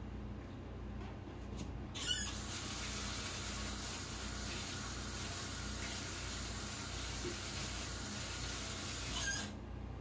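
Kitchen sink tap turned on about two seconds in, water running steadily while something is rinsed under it, then shut off near the end.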